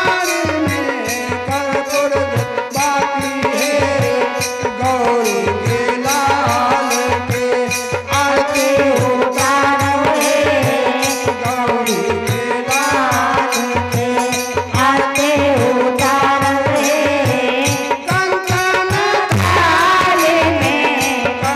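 Hindu devotional aarti music: a sung melody over drums and fast, steady percussion strokes.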